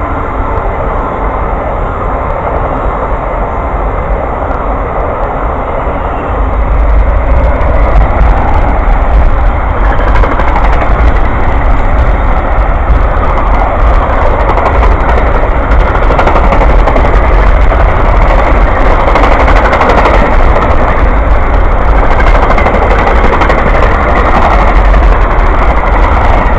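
A train passing close by, a steady heavy rumble with rushing noise and rapid wheel clatter. It gets louder about seven seconds in and stays loud to the end. The tail of a horn blast fades out at the very start.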